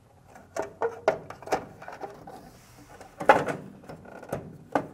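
Plastic wiring cover being fitted into the dryer's sheet-metal base: a series of sharp clicks and knocks, the loudest about three seconds in.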